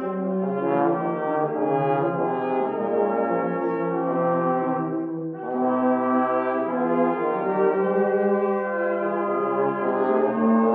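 Brass ensemble playing a slow piece in long held chords, with a short pause for breath about five seconds in.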